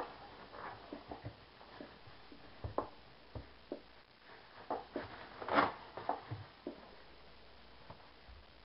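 Scattered light taps and knocks in a small room, a few a second at times, with one louder, longer sound about five and a half seconds in.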